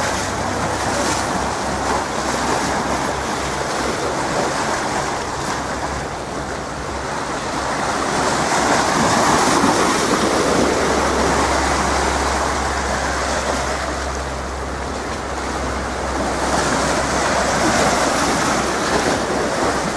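Small waves washing and splashing, with wind blowing across the microphone. The rush swells and eases every few seconds.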